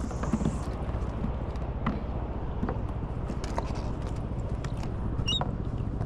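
A few light, irregular knocks and taps over a steady low rumble, with one brief high chirp near the end.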